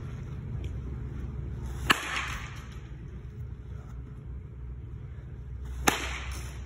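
Baseball bat hitting a soft-tossed ball twice, about four seconds apart, each a sharp crack with a short noisy tail. A steady low hum runs underneath.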